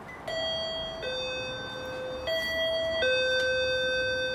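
Apartment video intercom chime ringing a two-tone high-low ding-dong twice: a visitor is calling from the entrance.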